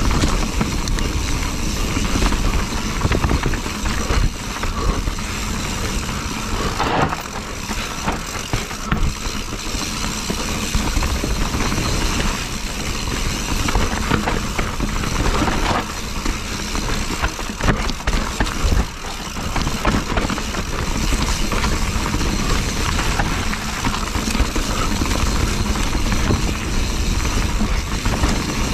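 Steady rushing noise of a mountain bike ride: wind over the microphone and tyres rolling on the trail, with a few knocks from bumps.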